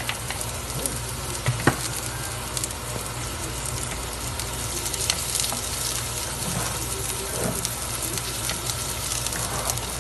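Food sizzling steadily in hot oil in a frying pan (kawali), with a few sharp clicks, the loudest about two seconds in.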